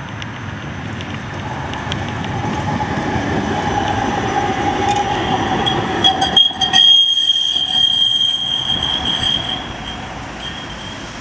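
Metropolitano de Granada tram, a CAF Urbos 3, passing close by on street track: rolling noise builds as it approaches with a steady whine, then a high steady wheel squeal starts about six seconds in and fades as the tram moves away.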